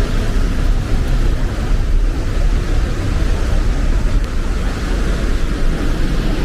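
Steady rushing of a nearby waterfall, a loud, unbroken noise that is heaviest in the low rumble.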